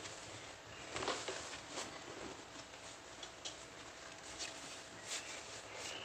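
Faint rustling of clothing and soft scattered taps as an elastic waist corset and a cotton shirt are handled and adjusted on the body.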